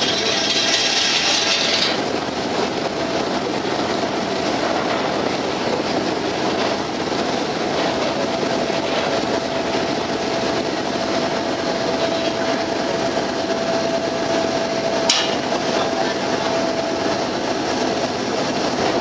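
Steady noise aboard a ferry under way: engine running with wind and water rush and a faint steady hum, a higher hiss dropping away about two seconds in, and one sharp click about fifteen seconds in.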